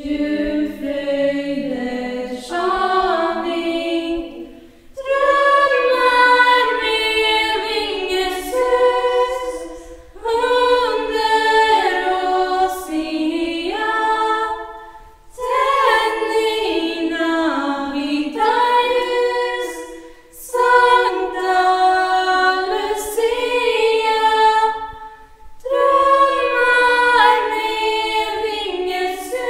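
Girls' choir singing a cappella, in sung phrases of about five seconds with short breaks for breath between them.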